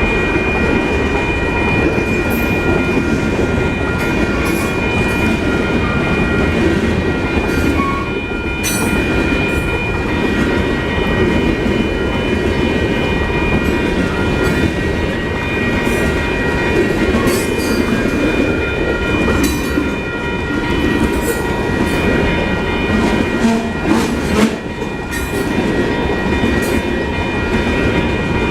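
A long train rolling past, its wheels rumbling and clicking over the rail joints, with a steady high tone underneath.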